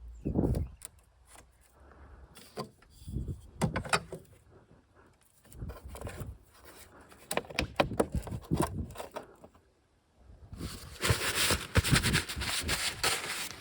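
Hand tools and car parts being handled: scattered clicks, knocks and scrapes, then near the end a few seconds of dense rustling, crackling noise.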